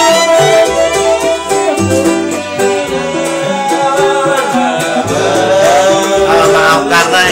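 Kroncong band playing: a man sings over violin, plucked small string instruments and a low bass line.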